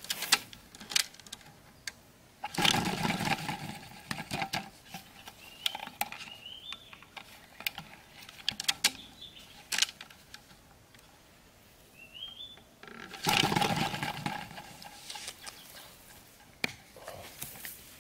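Handling noises from a bamboo-and-plastic-bottle trap being set: scattered light clicks and taps, with two louder rustling scrapes lasting a second or two each. A bird gives a few short rising chirps in the background.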